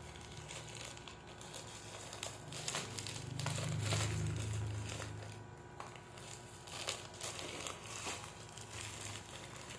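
Plastic wrapping crinkling and crackling in irregular bursts as a skein of yarn in its plastic bag is handled. A low hum swells for about two seconds in the middle.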